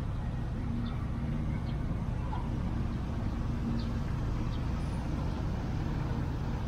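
Nissan car engine idling steadily under the open bonnet, a low even rumble.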